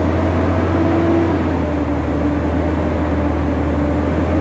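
Semi truck's diesel engine and road noise heard inside the cab while driving: a steady low drone with a faint steady hum above it.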